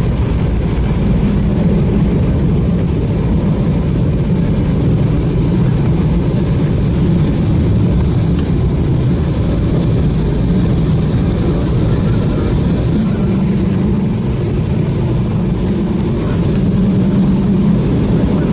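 Airbus A319 cabin noise while the jet rolls on the ground after landing: a steady, loud low rumble of the engines and the wheels on the pavement.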